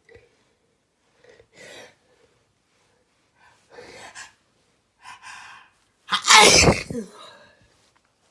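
A person with a cold taking a series of short, catching in-breaths, the build-up to a sneeze, then sneezing loudly once about six seconds in.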